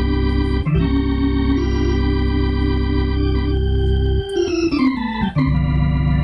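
Hammond-style two-manual organ playing full held chords over a deep bass, moving to a new chord about a second in. Around four seconds in a quick falling run of notes leads into a final held chord that stops near the end.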